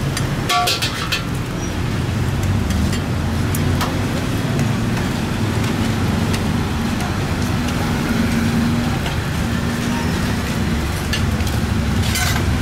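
A steady low rumble of street noise or a gas burner, with scattered clicks and a short run of ringing metal clinks about half a second in, such as a metal spatula striking a wok.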